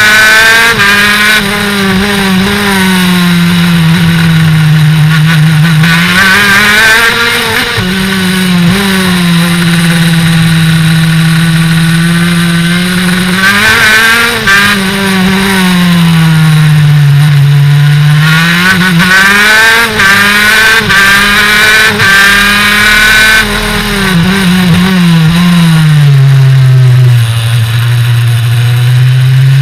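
Kart engine at full race pace: its note drops four times as the kart slows for corners and climbs again under acceleration out of each one.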